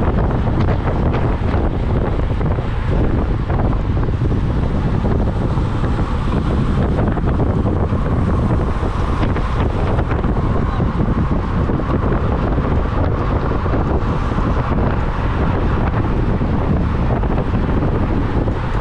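Wind buffeting the microphone of a camera carried on a racing bicycle at speed: a loud, steady rush with most of its weight in the low range.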